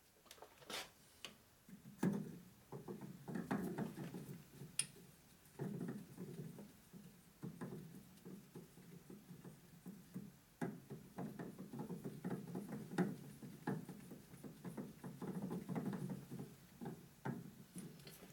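Irregular metallic clicks, taps and knocks of an external hone being handled and fitted onto a workpiece in a metal lathe, a scatter of separate strikes and scrapes rather than any steady running.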